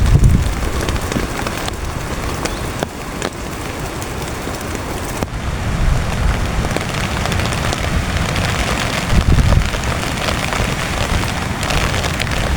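Heavy rain drumming steadily on a tent, with gusts of strong wind rumbling on the microphone, strongest at the start and again about three-quarters through.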